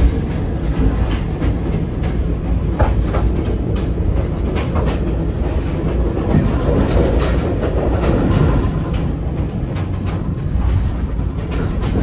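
Passenger train running on the track, heard from inside the rear carriage: a steady low rumble of wheels on rails, with irregular clicks and clacks.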